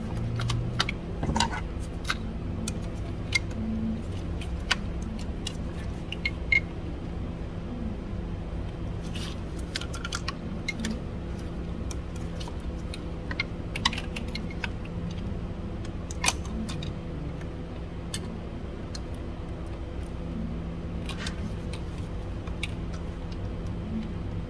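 Scattered light clicks and taps of a metal pick working at a plastic quick-connect retaining clip on a purge valve hose, over a steady low hum.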